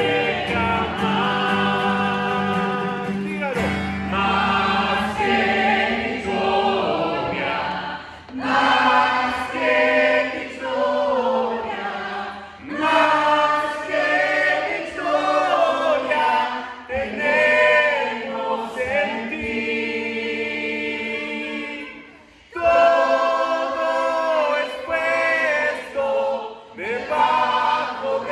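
A Christian worship song sung in Spanish by a male lead voice and women singers, amplified through microphones. An acoustic guitar is strummed under the voices in the first few seconds, then the singing carries on with little accompaniment.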